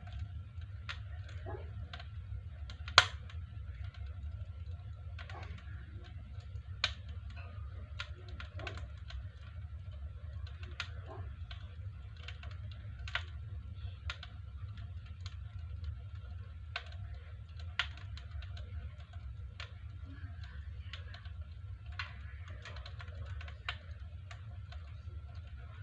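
Wood fire crackling in the firebox of a stove-fireplace: sharp irregular pops and snaps, the loudest about three seconds in, over a low steady hum.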